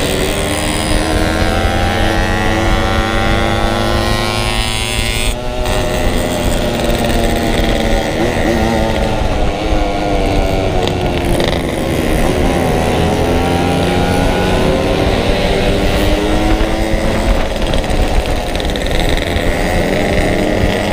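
Yamaha RX-King two-stroke motorcycle engine running under way, its pitch climbing and falling as the throttle opens and closes, with a brief break about five seconds in.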